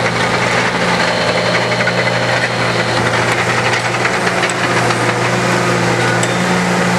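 Engine of track maintenance equipment running steadily at a constant speed, a low even hum with no change in pitch.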